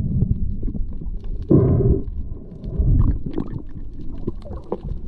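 Underwater sound picked up through a camera's waterproof housing: a low churning rumble of moving water with scattered clicks. A louder rushing swell comes about a second and a half in.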